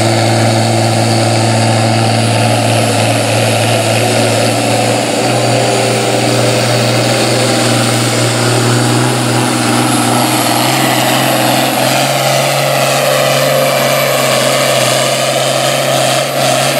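International Harvester 966 tractor's turbocharged diesel engine running loud and steady under full load while pulling a weight-transfer sled. Its pitch steps up twice as the engine gains speed down the track.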